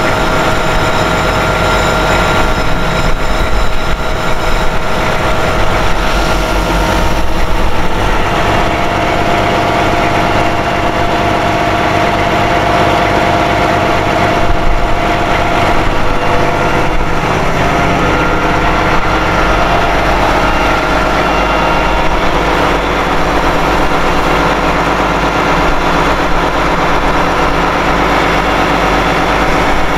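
Heavy tow truck's engine running steadily and loudly, with a steady whine over its low rumble.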